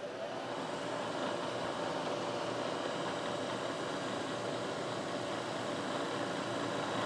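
Bridgeport manual milling machine spindle running at speed with a steady whine, its end mill taking a side cut off a metal block while the table is fed by hand. It is a smooth cut with no chatter.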